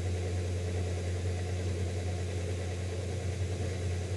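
Steady low hum, like a motor or appliance running, with a faint even hiss over it.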